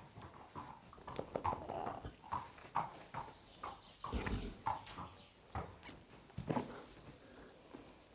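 A pony rolling in its stable bedding and scrambling back to its feet: irregular rustling and scraping of bedding with knocks of hooves, and a heavy thump about four seconds in.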